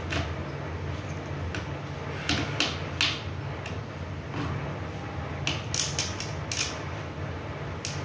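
Scattered small clicks and light knocks as a finderscope and its bracket are handled and fitted onto the mounting bolt of a reflector telescope tube. A steady low hum runs underneath.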